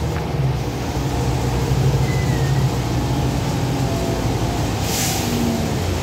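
Cabin sound of a 2012 Gillig Advantage low-floor transit bus under way through a turn: a steady low engine and road rumble, with a short hiss about five seconds in.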